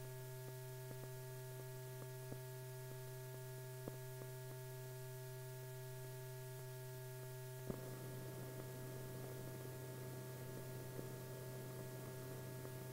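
Faint steady electrical hum with a few scattered clicks, the background noise of an old film soundtrack. There is a sharper click about eight seconds in, after which the hiss grows slightly.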